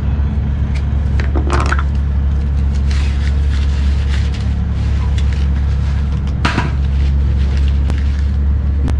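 Handling noises as a fishing rod in a cloth bag is pulled out of its cardboard shipping tube: rustling and scattered sharp clicks, the loudest about a second and a half in and again about six and a half seconds in, over a steady low rumble.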